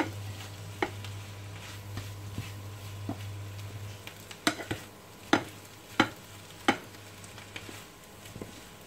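Two wooden spatulas tossing mixed seafood in a non-stick frying pan over light sizzling, with sharp knocks of wood on the pan, most of them in a quick run in the second half. A low steady hum stops about halfway through.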